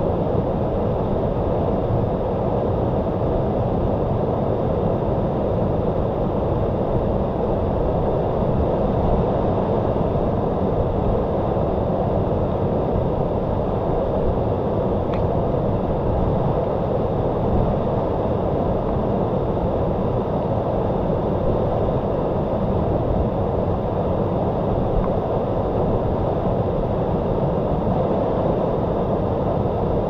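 Waterfall: falling water making a steady, unbroken deep rush, heaviest in the low range.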